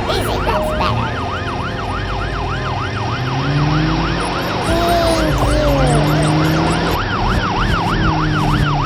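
Emergency siren warbling quickly up and down, about three rises and falls a second, over background music, with a few slower sliding tones around the middle.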